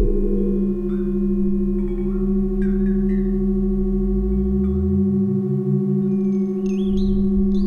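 Experimental electronic music: several held pure drone tones layered together, with a fast low pulse beneath. A deep tone glides slowly upward through the middle, and warbling high chirps come in near the end.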